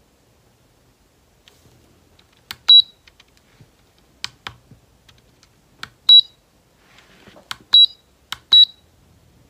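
LED digital clock beeping as its setting buttons are pressed: a click followed by a short high beep, four times, with a few quieter button clicks in between.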